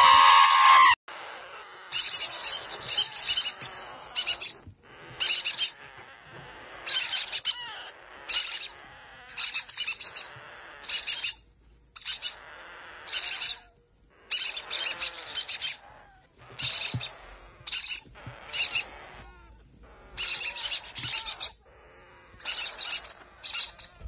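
About a second of loud squawking from feathered parrot chicks, then nestling parrot chicks calling in short clusters of high, raspy chirps about once a second, with quiet gaps between. These are the food-begging calls of unweaned chicks.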